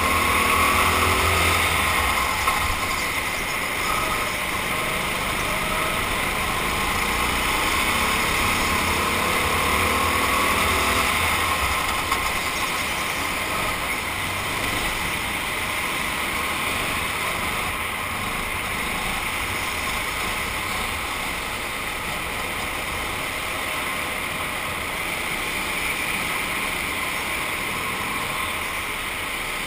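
Racing kart's engine running at speed, heard on board through a helmet camera, its note wavering in the first ten seconds or so as the kart goes through corners, then steadier.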